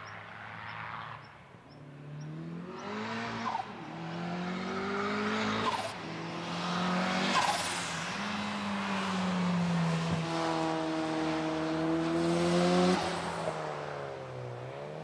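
Nissan 200 SX engine accelerating hard, its revs climbing through three gear changes, then held fairly steady through the turn and dropping about two seconds before the end, with tyres squealing.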